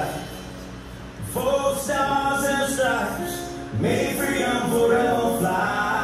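Country song with a male lead singer: a short lull in the vocal about a second in, then two sung phrases over the band.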